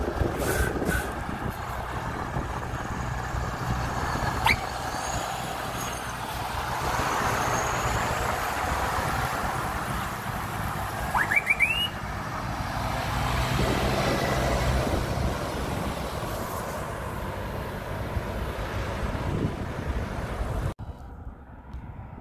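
Heavy truck diesel engines running close by as Volvo FH and Scania S500 tractor units drive past, a steady low engine note swelling as each one pulls through, with a short rising squeal partway through. Near the end it changes suddenly to quieter, more distant motorway traffic.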